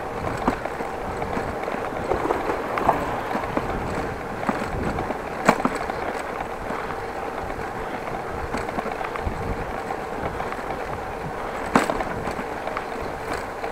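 Bicycle rolling over a brick-paved street: a steady rumble of tyres on the pavers with a rattle from the bike. Two sharp clicks stand out, about five and a half and twelve seconds in.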